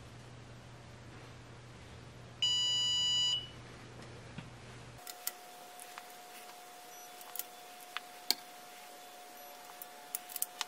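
Digital torque angle wrench giving one steady electronic beep about a second long, a little over two seconds in, the signal that the main bearing cap bolt has been turned the set 90 degrees. A few light clicks follow in the second half.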